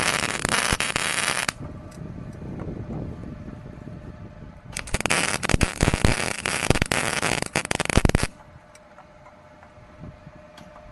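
Wire-feed welder arc crackling and spitting in two runs: the first stops about a second and a half in, the second runs from about five seconds to about eight, welding a flange onto a truck exhaust pipe.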